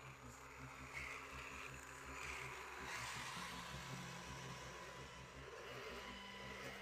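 Radio-controlled scale off-road truck running, its small electric motor and drivetrain humming steadily. A rushing, splashing noise swells about three seconds in.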